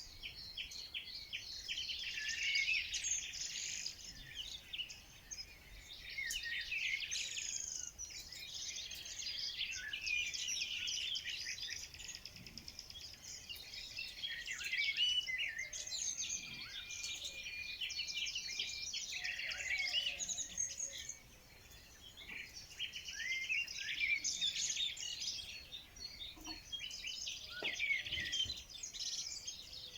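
Many songbirds chirping and singing at once, a dense chorus of short, high, overlapping calls and trills that thins briefly about two-thirds of the way through.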